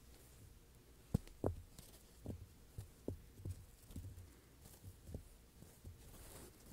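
Dull, soft thumps and taps of foam blocks being handled and set down, about eight of them in a few seconds starting about a second in, the first the sharpest.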